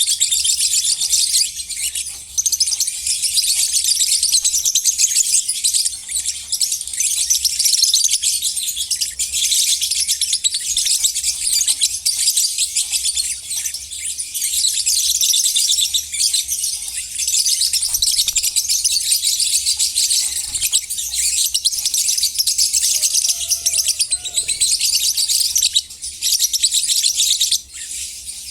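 A flock of lovebirds chattering: a dense, unbroken mass of shrill twittering calls from many birds at once.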